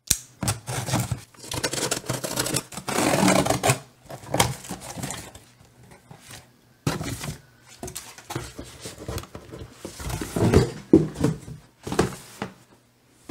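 A cardboard shipping box being opened by hand: a folding knife slitting the packing tape, and cardboard flaps pulled apart with scraping, tearing and rustling. Near the end, the boxed camera inside is lifted out and knocked against the desk. The sounds come as irregular scrapes, rips and knocks with short pauses between them.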